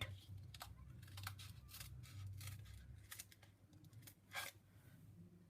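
Scissors cutting through cardboard: faint, irregular snips.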